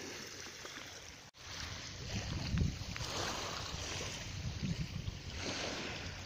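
Wind buffeting a phone microphone in low rumbling gusts over a steady outdoor hiss of wind and water, with a brief drop-out about a second in.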